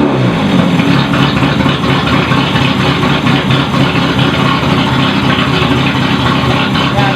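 Toyota Starlet KP61's four-cylinder engine running steadily and loud, freshly tuned with new spark plugs, distributor cap and rotor, and firing on all cylinders now that the plug wires are properly seated. It had been misfiring before.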